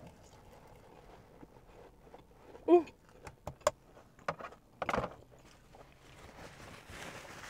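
Close-up eating sounds: a loud slurp a little under three seconds in, then a run of sharp wet smacks and sucking clicks as spicy rice-cake sauce is sucked off a wooden skewer, then quiet chewing.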